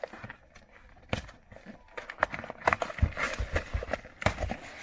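Irregular clicks, knocks and rustling from a delivered package being unwrapped and the stack of business-card magnets inside being handled, getting busier about two seconds in.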